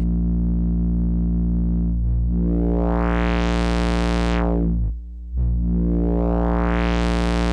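Square-wave synth tone, a steady low buzz, through a breadboarded 4-pole transistor lowpass filter with its resonance turned up. The filter cutoff sweeps twice: the tone opens from dull to bright and back, goes dull and quieter for a moment about five seconds in, then opens again.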